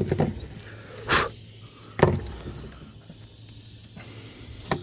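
Short hissing bursts, four of them a second or so apart, as a homemade smoke bomb is lit with a torch and its packed smoke composition starts to catch.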